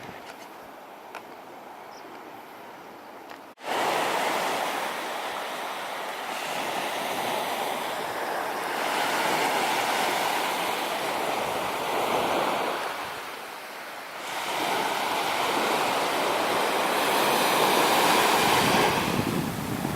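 Sea surf breaking and washing on a beach, a loud rushing noise that swells and ebbs as waves come in. It starts abruptly about three and a half seconds in, after a quieter stretch, and eases briefly a little past the middle before building again.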